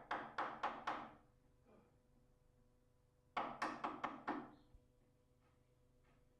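A wood chisel being struck to chop timber out of a door edge for a mortise lock's faceplate: two quick runs of about five sharp knocks each, roughly four a second, the second run about three and a half seconds after the first.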